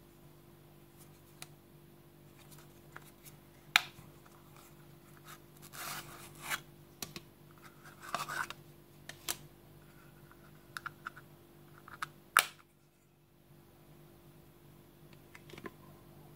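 A wooden card holder being handled and opened by hand: several sharp clicks, which fit the metal press stud on its leather strap, and short scrapes and rubs of wood on wood, over a faint steady low hum.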